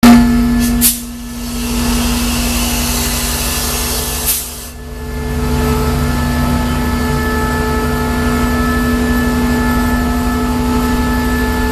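CSR Qishuyan SDA3 diesel-electric locomotive's engine running with a steady drone and low rumble. For the first few seconds a loud hiss rides over it, breaking off sharply about a second in and again about four and a half seconds in.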